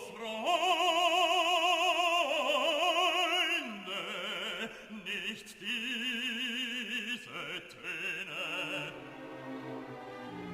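Background music: an operatic solo voice singing sustained notes with a wide vibrato, moving between held pitches.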